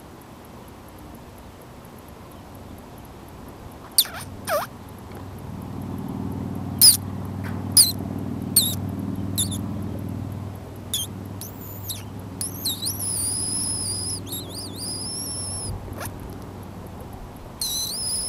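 High-pitched squeaky calls: short sharp squeaks with quick downward sweeps, starting about four seconds in, then long wavering whistles twice in the second half. A low hum swells underneath through the middle.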